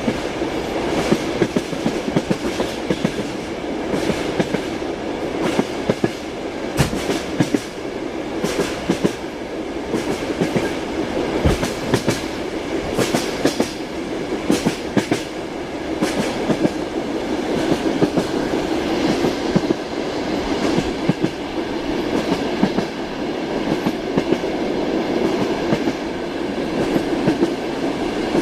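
Passenger train running on rails, heard from inside a carriage: a steady rumble with the wheels knocking over the rail joints in repeated quick clusters.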